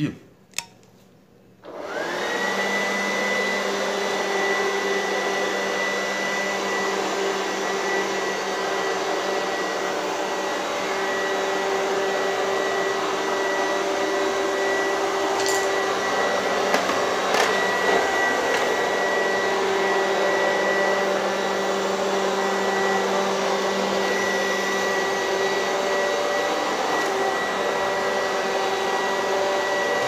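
Wap robot vacuum cleaner switching on after a couple of clicks: about two seconds in its motors spin up with a rising whine, then run steadily with a high whine over a hum. A few short clicks come near the middle. It is running on a rebuilt battery pack of four 18650 lithium cells.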